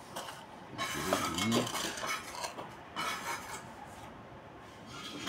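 Steel mason's trowel scraping and clinking on mortar and brick, in several short rough scrapes with pauses between.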